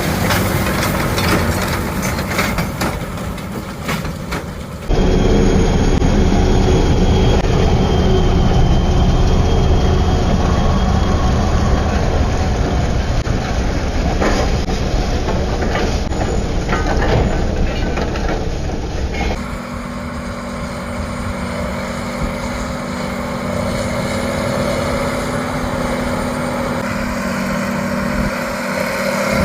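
Farm machinery engines running steadily during hay baling and loading, in three stretches joined by abrupt cuts about five seconds in and about nineteen seconds in.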